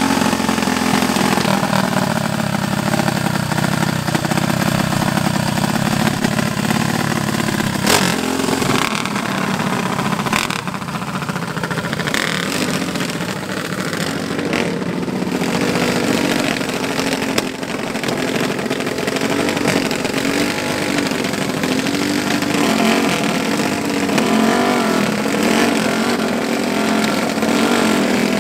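Racing mini bike engine running just after being started with a handheld starter, held at a fast idle and later revved up and down again and again. There is a sharp knock about eight seconds in.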